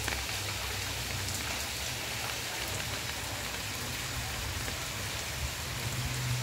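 Steady heavy rain falling on a cobbled street and the surfaces around it, a dense even hiss with scattered drop ticks. A low rumble runs underneath and grows stronger near the end.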